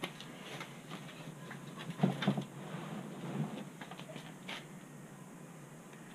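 Faint handling noises of garden work: scattered scrapes, rustles and small clicks, with a louder scuffling, scraping stretch about two seconds in, as manure is shovelled up to be mixed into the potting soil.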